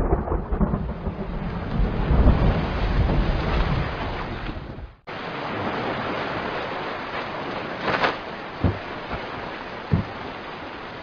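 Heavy rain with thunder rumbling through the first half. After a sudden break about five seconds in, steady rain hisses on, with a couple of short dull thuds.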